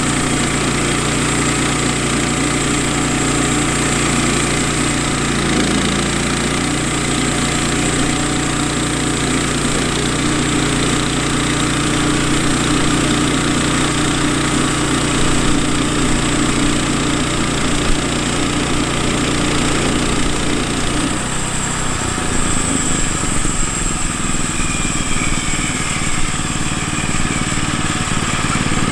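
Woodland Mills HM122 bandsaw mill's Kohler gas engine running steadily under load as the band blade saws through a cedar log. About 21 seconds in, the steady engine tone breaks up into a rougher, uneven sound.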